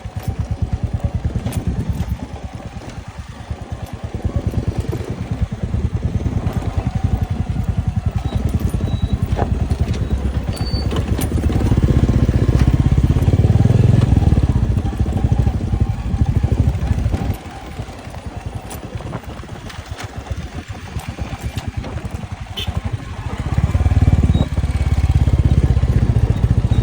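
Motorcycle engine running under way while riding, a steady low rumble of rapid firing pulses that grows louder for a few seconds about halfway through and again near the end.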